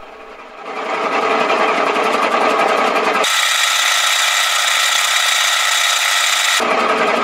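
Milling machine's spindle drive starts running about a second in, a steady gear whine with several tones, while the cutter takes a slow facing pass on a spinning Getinax workpiece. In the middle the footage plays at triple speed, so the whine jumps much higher in pitch before dropping back.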